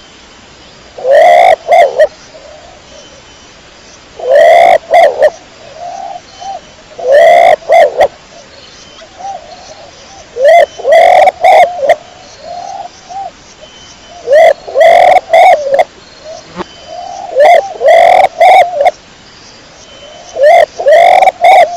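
Domestic pigeon cooing: loud phrases of several short rising-and-falling coos, repeated about every three to four seconds, with softer coos in between.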